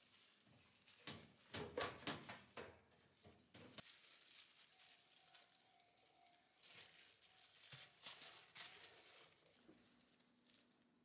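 Faint swishing of a cleaning cloth wiped by a plastic-gloved hand over smooth kitchen panels, in two spells of quick back-and-forth strokes with a soft plastic crinkle.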